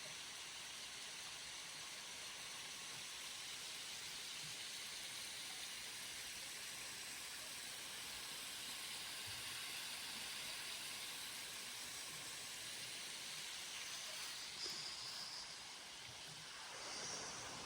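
Steady hiss of a creek running over rocks, with a couple of short, faint high-pitched sounds near the end.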